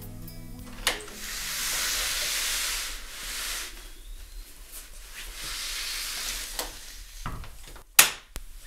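Interior panel door being opened and closed: a latch click about a second in, two stretches of soft hissing rustle, then a loud sharp click near the end as the door latches shut.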